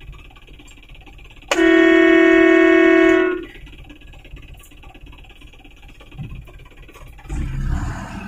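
Truck horn sounding once, a single steady note held for nearly two seconds. Near the end there is a brief low rumble.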